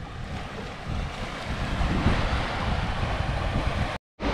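Wind buffeting the microphone over the wash of small waves on a sandy beach, growing louder about halfway through; the sound drops out for a moment near the end.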